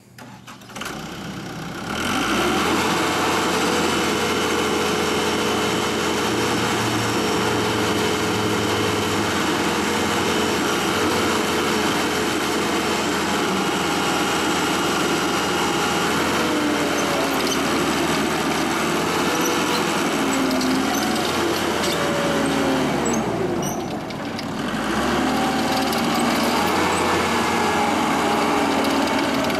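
ASV 2810 tracked skid steer's Isuzu diesel engine running steadily. About halfway through, its pitch starts wavering up and down as the machine works. Near three-quarters through, the engine speed dips briefly and then recovers.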